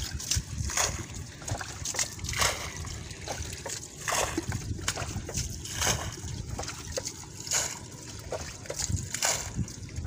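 Hands, feet and a wooden-handled tool working through shallow muddy water, making irregular short splashes and sloshes, several a second at times, as fish are groped for in the mud.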